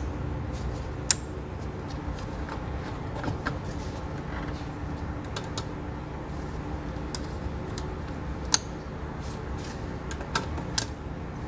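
Plastic engine-bay connectors and hose fittings being handled and snapped back into place: scattered sharp plastic clicks, the loudest about a second in and again near eight and a half seconds, over a steady low background hum.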